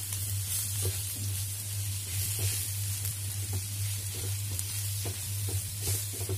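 Baby potatoes, onions and dry spices sizzling in hot oil in a non-stick frying pan, with a wooden spatula scraping and tapping against the pan many times as they are stirred. A steady low hum runs underneath.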